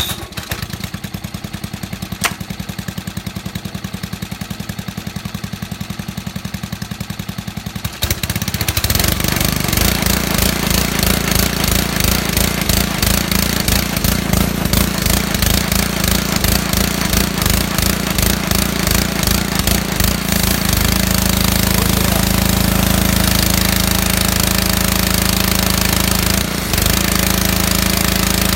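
Small gasoline engine of a home-built pressure washer running with an even pulsing beat. About eight seconds in it gets louder, with added hiss, and near twenty seconds in it settles into a steadier tone.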